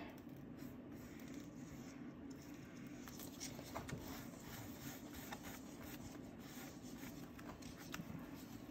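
Paintbrush working acrylic paint onto a sketchbook's paper page: faint brushing with small scattered taps, over a steady low hum.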